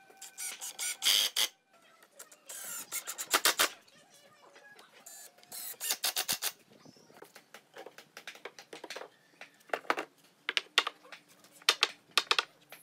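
Short bursts of a cordless drill and impact driver boring into and driving screws through a pine timber frame joint, with a few sharp knocks near the end.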